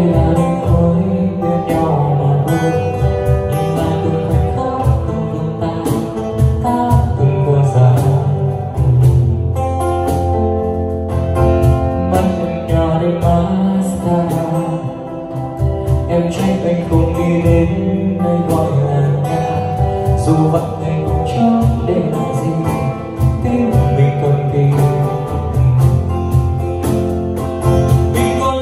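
A pop song played loud through a P.audio PA loudspeaker system, with plucked guitar over a heavy, steady bass line.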